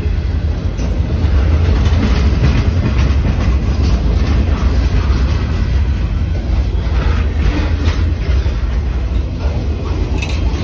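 Freight train boxcars rolling past: a steady low rumble of steel wheels on the rails, with scattered clacks as the wheels cross the rail joints.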